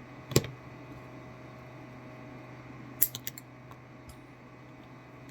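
Hand wire stripper clicking as it is handled: one sharp snap about half a second in, then a quick cluster of clicks about three seconds in.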